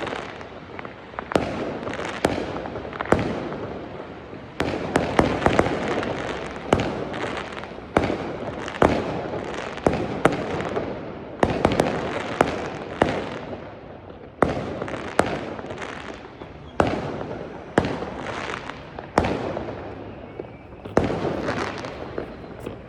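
Aerial fireworks bursting: a sharp bang about every second or so, each trailing off in a rumbling crackle that dies away before the next.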